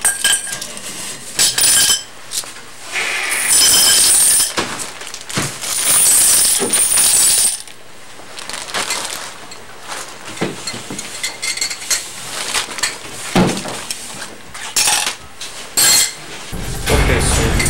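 Small metal items dropped one after another into a saucepan, clinking and clattering against it, with two longer rattling stretches. A loud low rumble comes in near the end.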